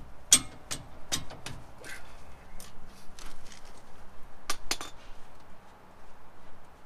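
Irregular metallic clinks and clicks of a ratchet, socket and caliper bolts as a truck's front brake caliper is unbolted: a cluster in the first two seconds, then a couple more sharp clinks a few seconds later.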